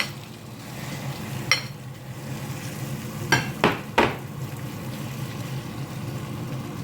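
Potato mixture frying in hot oil in a pan, a steady sizzle. A metal utensil knocks against the cookware once about a second and a half in, then three times in quick succession a couple of seconds later, with a short ring.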